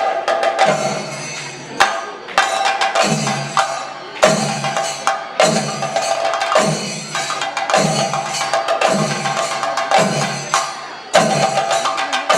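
Kerala chenda drums beaten with sticks in a thayambaka ensemble, with ilathalam hand cymbals ringing along. Fast, dense stick strokes over a heavy low beat that repeats about once a second.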